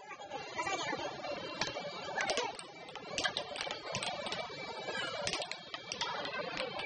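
Plastic air hockey puck clacking against the mallets and the table's rails in quick, irregular hits.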